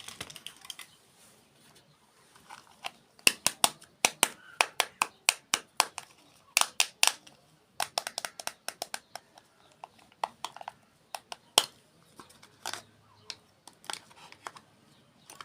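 Close-miked ASMR eating of desserts: an irregular run of crisp, sharp crunches and mouth clicks from chewing, densest from about three seconds in until near the end, then thinning out.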